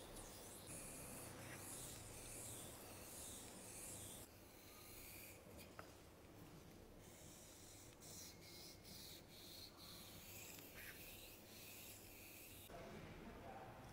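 Faint, repeated scraping of a straight razor's edge sliding over a wet Japanese whetstone during honing.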